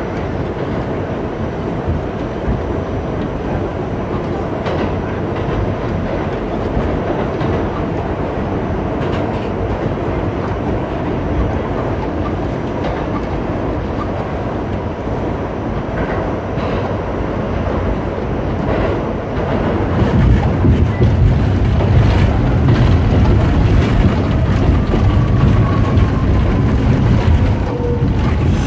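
New York City subway train running through a tunnel, heard from inside the car: a steady rumble and rattle with irregular wheel clacks. The low rumble grows louder about two-thirds of the way through, and a faint falling whine comes near the end.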